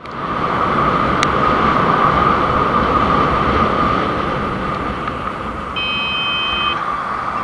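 Motorcycle riding at speed: steady wind rush and engine noise. About six seconds in, a horn sounds for about a second, a warning to a van pulling out of a side junction without giving way.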